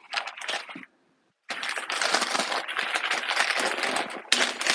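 Thin plastic bag crinkling and rustling as it is handled and opened to unwrap glass jars. There are a few short crackles at first, then dense, continuous crinkling from about a second and a half in.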